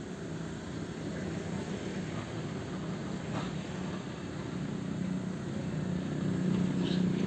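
Sumitomo excavator's diesel engine running steadily under work, growing louder over the last couple of seconds.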